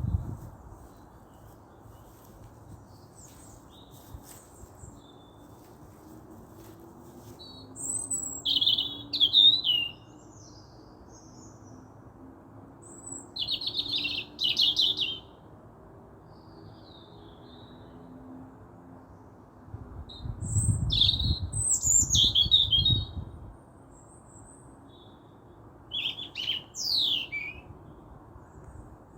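Songbirds singing in four short bouts of quick, high, warbling song, over a steady low background hiss. A low rumble rises under the third bout.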